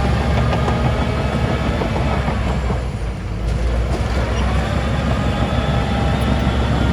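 A heavy diesel construction machine running, with steady high metallic tones over the low engine rumble. The sound dips briefly about halfway through, then picks up again.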